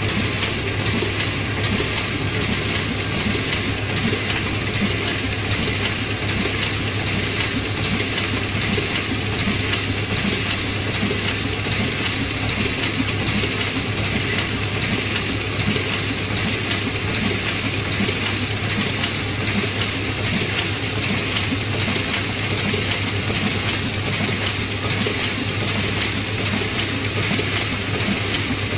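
Zhongye small offset printing press running steadily while it prints, with a fast, even mechanical clatter over a constant low hum. It is feeding and printing two-colour snack-packaging sheets at about two sheets a second.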